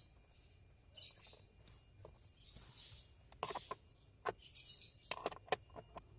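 A 10 mm ring wrench tightening the bolt that holds a ground wire's ring terminal to the car body: a few soft rustles, then a run of irregular, sharp metallic clicks and ticks over the second half.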